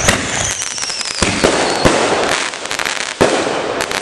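Consumer firework mortars going off: dense crackling with several sharp bangs, and a whistle falling in pitch over the first two seconds.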